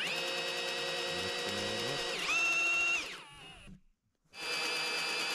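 Ryobi cordless drill boring a hole into a wooden board. The motor whines steadily, jumps up in pitch about two seconds in, stops and winds down about a second later, then starts again near the end.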